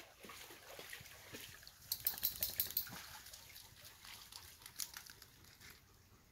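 Rustling and crackling of leaves and twigs as someone walks through brush, with a dense cluster of sharp crackles about two seconds in and another near five seconds, thinning out near the end.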